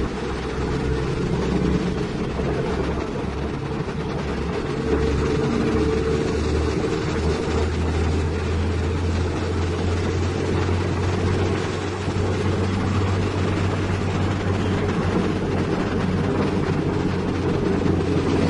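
Heavy diesel engine running steadily with a deep, even drone.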